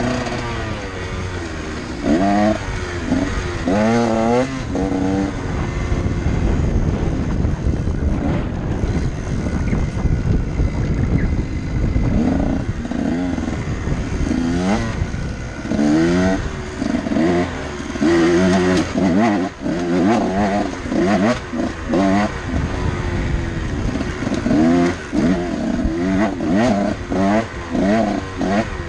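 Dirt bike engine being ridden hard, its pitch climbing and dropping again and again as the rider opens and closes the throttle and shifts, with knocks and rattles from the rough trail.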